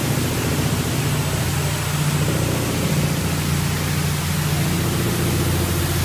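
Spinforce Wash Master RWM164 automated rug washing machine running: a steady hiss of water spraying onto the rug over a low, steady machine hum.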